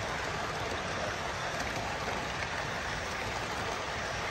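HO-scale stainless-steel streamlined passenger cars rolling past on model track, a steady even rushing noise with no distinct clicks.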